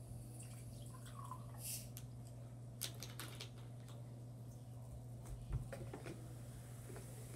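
Faint plastic-bottle sounds: a screw cap twisted off with a few small clicks about three seconds in, then a knock, and the drink poured into a glass tumbler, trickling and splashing, near the end. A steady low hum runs underneath.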